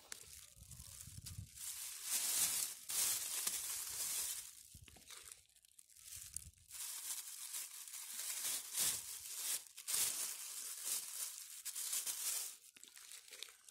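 Clear plastic freezer bag crinkling and rustling in irregular bursts as peat is poured and pushed into it by hand, with a few dull thuds as handfuls drop in.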